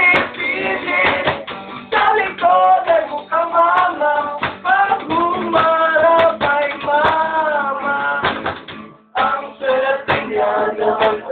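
Young men singing to a strummed acoustic guitar. The music breaks off briefly about nine seconds in.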